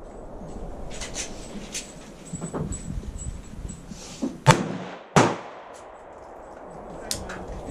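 Two rifle shots from a Smith & Wesson M&P 5.56 NATO rifle, about two-thirds of a second apart, roughly halfway through. Fainter sharp cracks and clicks come before and after them.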